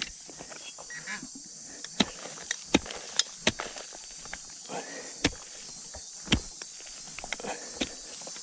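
A hand digging tool striking into soil and stones in a series of sharp, irregular knocks, digging down to a shallow metal-detector target, over a steady high hiss.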